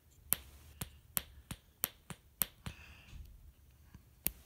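A small switch on a breadboard PA circuit being flipped back and forth: about eight sharp clicks at uneven intervals, the last one after a pause of over a second.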